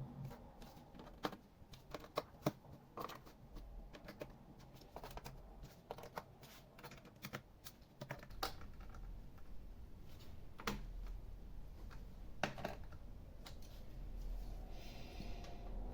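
Light, irregular plastic clicks and taps from hands working on a laptop, spaced unevenly with short pauses between them.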